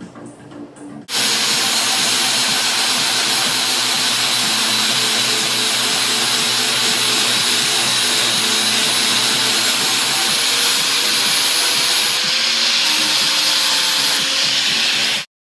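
Angle grinder running against metal: a loud, steady grinding hiss over the motor's whine. It starts suddenly about a second in and cuts off abruptly near the end.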